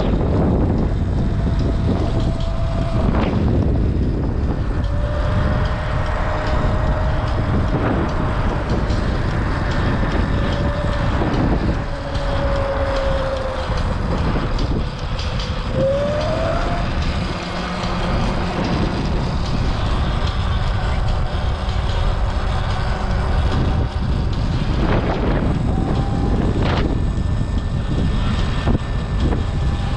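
Wind buffeting the microphone while riding a Sur-Ron X electric dirt bike, its motor whine sliding up and down with speed. A few sharp knocks come through, part of the strange knocking that the rider takes for a loosely tightened rear wheel.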